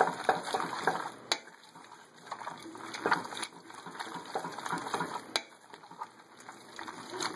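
Tube pasta being stirred quickly through raw egg yolks in a metal pot: a wet, sticky shuffling with scattered sharp clicks of the utensil against the pot.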